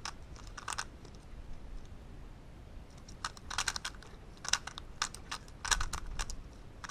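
Plastic Rubik's cube being turned by hand: quick clusters of clicking and clattering as the layers are twisted, with a pause of about two seconds in the first half before several more bursts of turns.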